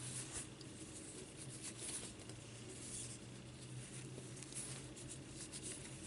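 Faint, scratchy rustling of a thin cotton fabric strip being wound by hand around a small ring, in soft irregular strokes.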